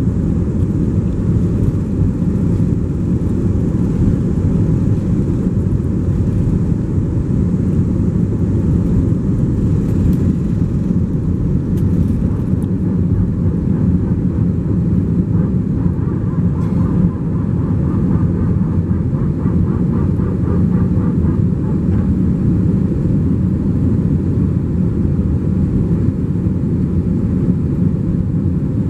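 Cabin noise in an Airbus A321 at takeoff thrust: a loud, steady deep rumble of the engines and rushing air through the end of the takeoff roll, liftoff and the initial climb.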